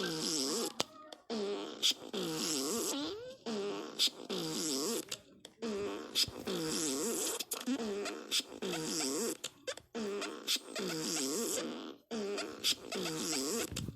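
Fart sound effects played one after another, a new one about every two seconds, each a wavering pitched blast.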